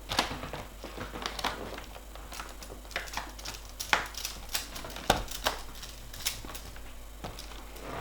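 Irregular light clicks and taps of a magnetic screwdriver driving small screws into the bottom corners of a laptop's plastic screen bezel.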